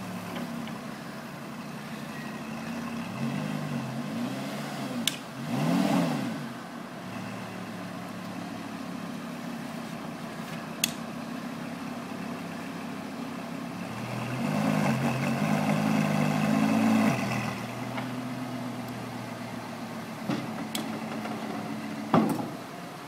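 Lamborghini Gallardo LP560-4 Spyder's V10 engine idling as the car creeps down a transporter ramp, with a brief rise in revs about six seconds in and a longer, louder one a little past the middle. A few sharp clicks come through now and then.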